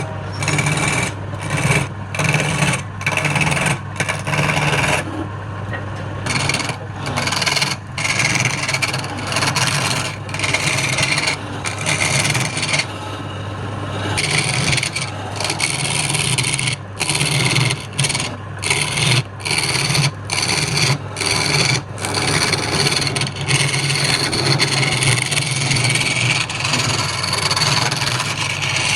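Wood lathe running with a steady motor hum while a hand tool scrapes the spinning wood in a long series of rasping passes, broken by many short gaps as the tool lifts off.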